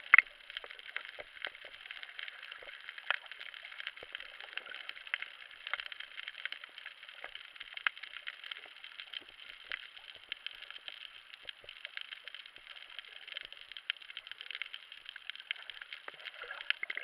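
Underwater sound heard through an action camera's waterproof housing: a muffled, steady crackle of many small irregular clicks.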